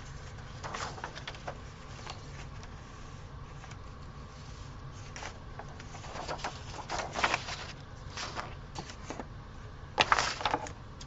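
Paper being handled and cut with scissors: scattered crisp snips and rustles, with a louder cluster about ten seconds in, over a faint steady low hum.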